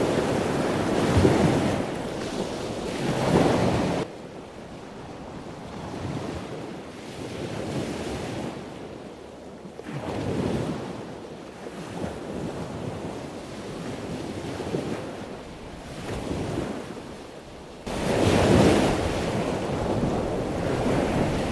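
Sea waves breaking on a rocky shore, with wind on the microphone. About four seconds in, the sound drops suddenly to a softer rushing that swells every couple of seconds. Near the end, loud surf crashes on the rocks again.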